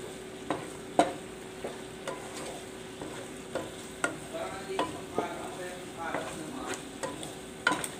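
Chicken wings and sliced red onion sizzling in oil in a nonstick pot while being sautéed, with a wooden spatula scraping and knocking against the pot about once a second as they are stirred.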